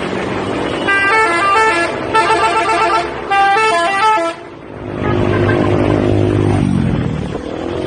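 Bus telolet horn, a set of multi-tone musical horns, playing a quick tune of stepping notes in three bursts. It is followed by a lower held horn tone that slides down in pitch, over the bus's running noise.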